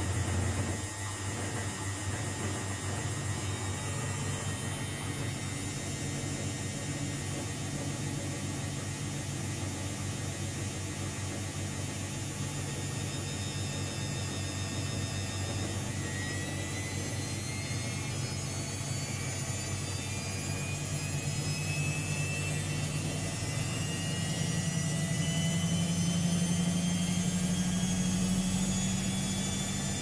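Luxor WM 1042 front-loading washing machine in its spin cycle with an unbalanced load: a steady motor hum and drum whir, with a whine that rises steadily in pitch from about halfway through as the drum speeds up toward 800 rpm.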